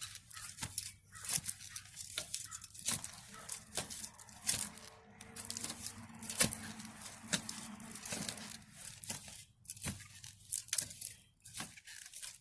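A post hole being dug by hand: a hand digging tool strikes and scrapes into the dirt over and over, in irregular strokes about one or two a second, each with a gritty crunch.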